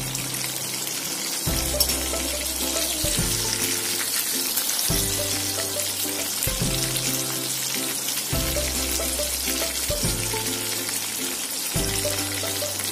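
Semolina-coated pomfret sizzling steadily as it deep-fries in hot oil in a kadai. Background music plays over it, its low notes changing about every second and a half to two seconds.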